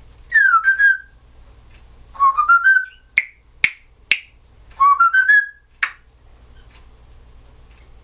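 Timneh African grey parrot whistling: three short phrases of quick notes that step upward in pitch, with four sharp clicks among the later phrases.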